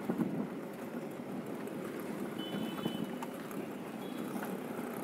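Auto-rickshaw ride heard from the passenger seat: the small engine running steadily under road and traffic noise.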